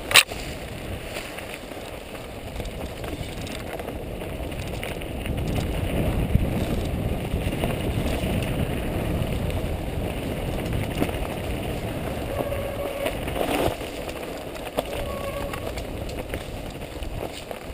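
Mountain bike descending a dirt singletrack, heard from the rider's own camera: a steady low rumble and rattle of tyres and bike over rough ground, louder through the middle, with a sharp knock just after the start and another about 14 seconds in.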